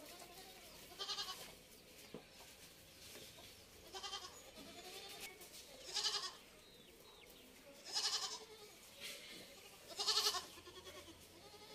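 Kodi goat kids bleating: about five short calls roughly two seconds apart, with fainter bleats between them.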